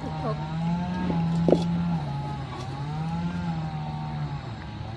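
An engine droning steadily, dropping a little in pitch about two seconds in and stopping shortly before the end, with a single sharp click about one and a half seconds in.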